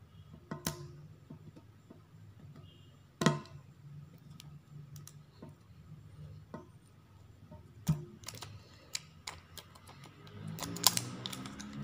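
Fingers picking at and peeling the crinkly plastic wrapper of a toy surprise ball: scattered clicks and crackles, with one sharp snap about three seconds in and a denser run of crackling near the end as the wrapper begins to come away. A low steady hum runs underneath.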